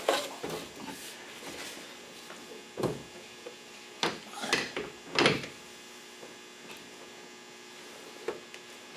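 A Chevrolet Volt battery module being set down and shifted into place by hand, its casing knocking and sliding against the neighbouring modules and the metal battery frame: a few soft knocks between about three and five and a half seconds in, a couple of light clicks near the end, over a faint steady hum.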